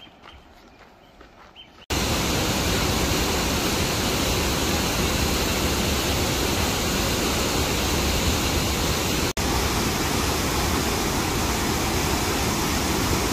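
A waterfall's loud, steady rush of water, starting abruptly about two seconds in after a quiet stretch, with a split-second gap near the middle.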